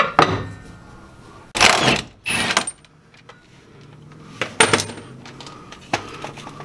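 Metal tools and parts clinking and knocking during work under a car: a few separate sharp clinks, with the loudest short clatter about two seconds in.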